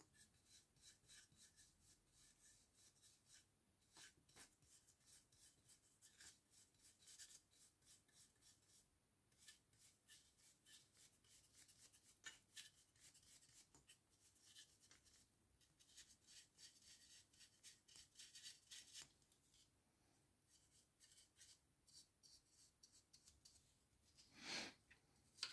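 Faint, quick scratching strokes of a large dry brush's bristles flicked back and forth over the miniature's raised edges and wing membranes, with a louder rustle near the end.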